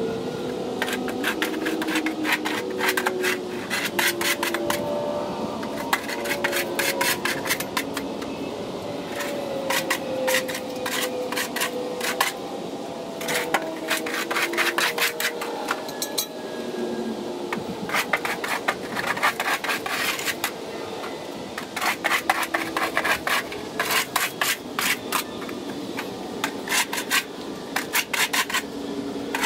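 Shovel scraping goat droppings and dirt off a concrete floor, in runs of quick rasping strokes a second or two long with short pauses between.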